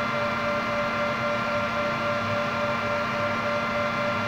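Steady machine hum made of an even noise with a few fixed tones, unchanging throughout.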